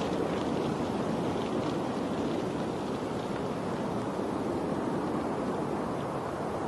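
Steady rushing noise of water, unbroken and even.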